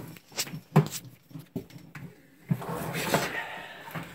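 Handling noises as a water hose and its fittings are worked on: a few sharp knocks and clicks in the first second, then a longer scraping rustle starting about two and a half seconds in.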